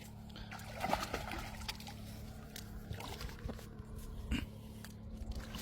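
Water splashing in short bursts, strongest about a second in and again near four seconds in, over a steady low hum.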